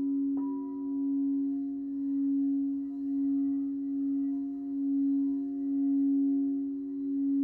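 Frosted quartz crystal singing bowls. One is sung by a mallet circling its rim, giving a steady ringing tone that swells and fades about once a second. Another bowl is struck once about half a second in, adding a higher ring that fades away.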